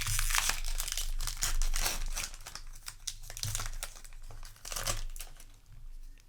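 Foil wrapper of a Magic: The Gathering play booster pack crinkling and crumpling as it is handled, in dense crackly flurries, busiest in the first two seconds with further bursts later on.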